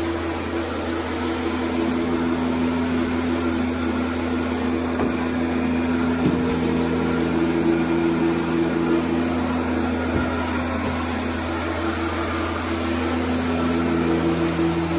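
Carpet-cleaning extraction machine running steadily, its vacuum and pump giving an unchanging hum with a broad hiss.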